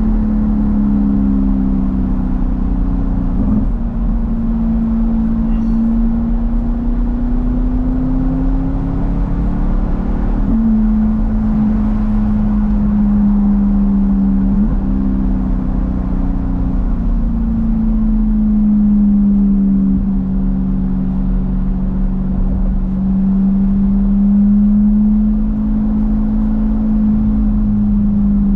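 C8 Corvette's V8 running through a Tap Speed aftermarket exhaust, a steady low drone whose pitch slowly rises and falls and jumps suddenly a few times as the revs change.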